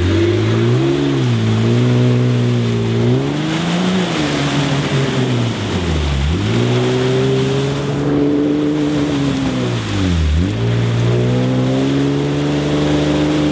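Jeep Wrangler's engine revving hard as it pushes through a deep, sludgy mud hole. The revs rise and fall, dip sharply twice and pick straight back up, over the noise of tyres churning mud and water.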